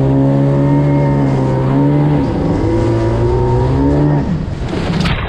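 Yamaha Super Jet stand-up jet ski's two-stroke 701 engine running hard at a steady pitch. The pitch dips and climbs back twice as the throttle is eased and opened, then the engine note drops away about four seconds in.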